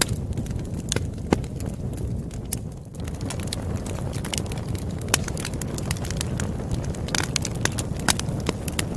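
Wood campfire crackling: irregular sharp pops and snaps over a steady low rush of burning.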